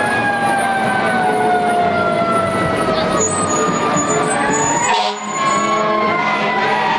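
Fire engine siren sliding slowly down in pitch, then rising again about four to five seconds in, over the steady running of the truck's engine. A short hiss comes about five seconds in.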